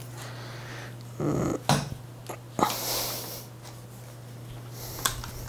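Light stand being pulled open by hand: a knock, a few sharp clicks and a short sliding scrape as its telescoping legs and sections are extended, over a steady low hum.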